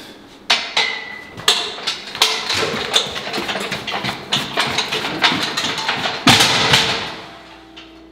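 Strongman yoke loaded with about 205 kg of plates being picked up and carried: sharp knocks as it comes up, then the plates and frame clanking and rattling with each step. A heavier thud comes about six seconds in.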